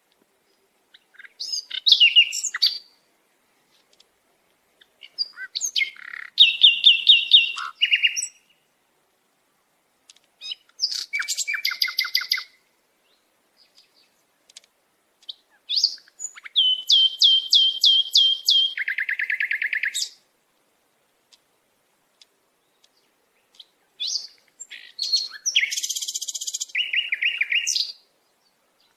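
A songbird singing in five separate phrases with pauses between them. Each phrase is a quick series of repeated high notes, and some end in a lower, buzzy trill.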